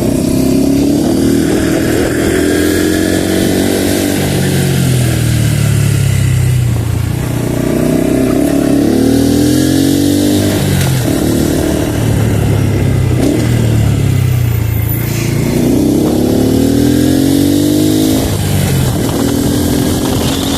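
Honda Pop 110's small single-cylinder four-stroke engine running under way, its pitch climbing and then dropping several times as the bike accelerates and changes gear.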